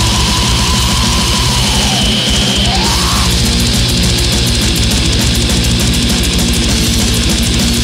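Black metal music, loud and dense, with distorted guitars and fast, regular drumming. About two seconds in, a high pitched line sweeps down and climbs back up.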